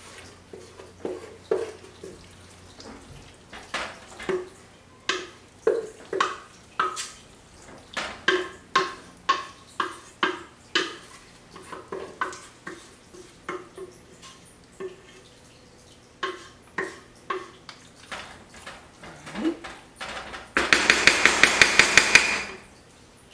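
A wooden spoon scraping and knocking inside a stainless steel pot as macaroni and cheese is worked out into a glass baking dish: a long string of separate knocks, then near the end a fast, loud run of about six strokes a second for a couple of seconds.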